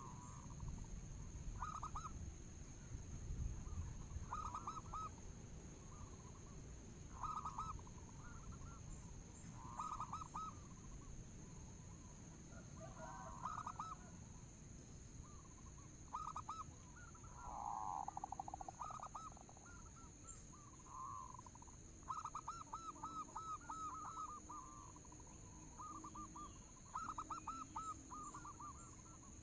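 Zebra doves (perkutut) cooing in repeated short phrases of quick, rolling notes, one after another. A steady high-pitched whine runs underneath.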